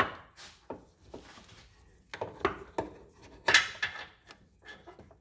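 Irregular clicks, knocks and rubbing as a hand works the turn-signal bulb and socket against the plastic behind a car's headlight housing. The sharpest click comes at the start and a busier cluster comes about three and a half seconds in.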